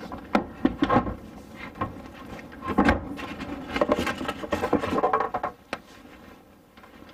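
Dinette table being set in place on its telescoping stand: a series of knocks and clunks with some scraping, the loudest just under three seconds in, dying down for the last second or so.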